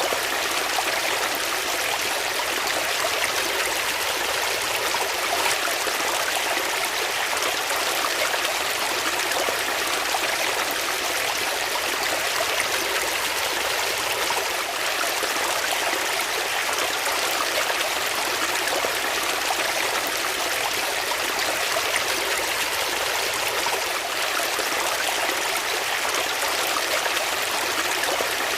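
Flowing water: a steady, even rush with no breaks or changes.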